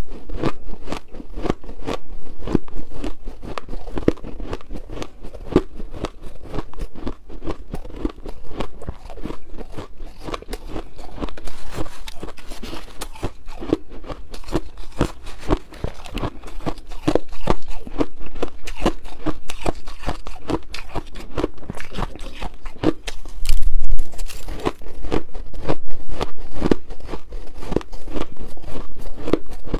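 A person chewing mouthfuls of shaved ice: a dense, continuous run of crisp crunches, many per second.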